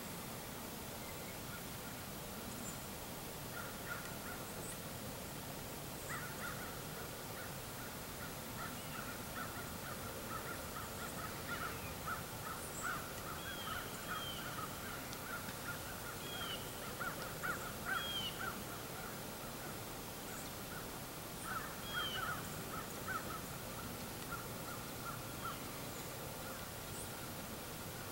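Birds calling off and on over a steady outdoor hiss: many short calls, busiest in the middle, with a few higher chirps among them.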